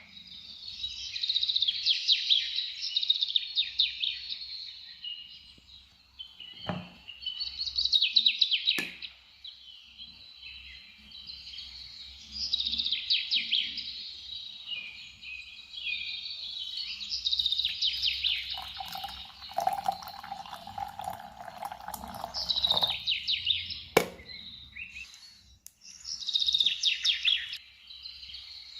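Songbird singing: bursts of fast, high chirping trills every few seconds, with a few sharp clicks and a steady tone for a few seconds past the middle.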